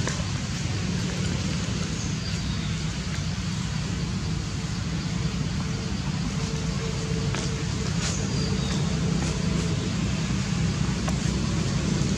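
Steady low background rumble with faint scattered clicks.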